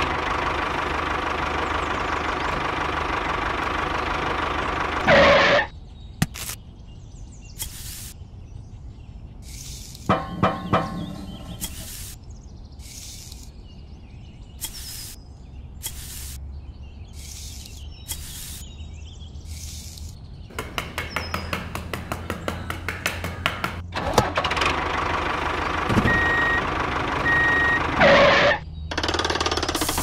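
Tractor engine running steadily, cutting off about five seconds in and starting up again near the end, with two short beeps. In between, a run of short scrapes and clatters as sand is dug with a small stick.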